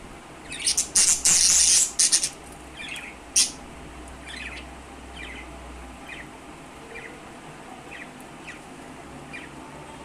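Budgerigars calling: a loud, harsh burst of squawking starting about a second in, then a string of short chirps, roughly one a second.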